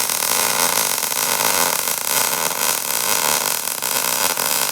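MIG welding arc running a practice bead on thin steel: a loud, steady crackling hiss. The voltage is set low, about 18 volts, which the welder thinks is why the bead came out poorly, with the wire sticking out.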